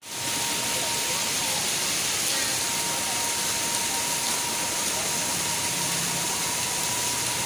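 Water from a stone fountain splashing steadily into a hot-spring pool, a constant rushing hiss, with faint voices and a thin steady high tone in the background.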